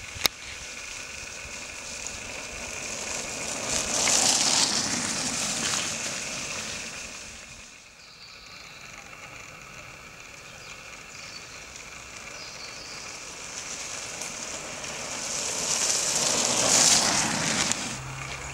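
Steady outdoor hiss, strongest in the high range, that swells twice, about four seconds in and again near the end, with a sharp click just after the start.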